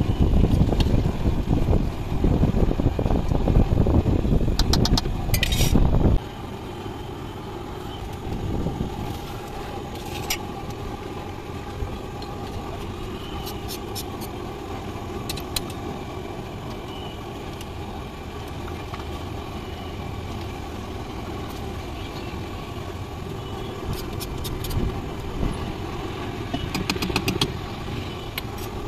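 Roadside street ambience with traffic going past, and a loud low rumble that cuts off abruptly about six seconds in. Now and then a metal ladle clicks and scrapes on a large iron tawa as chole is stirred.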